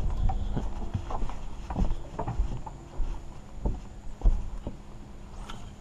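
Irregular knocks and thumps on a fiberglass flats boat, a couple a second, over a faint steady hum.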